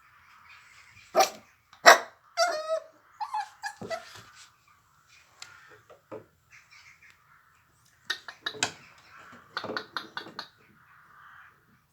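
Maltese–Shih Tzu puppies yapping: two sharp yelps, then wavering whines, then a quick run of yips near the end.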